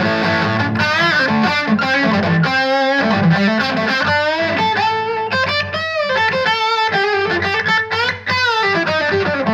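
Fender Modern Player Telecaster's bridge humbucker played through a Vox VT20X amp with a Marshall-style overdrive, tone knob rolled back a little: single-note lead lines with string bends and vibrato.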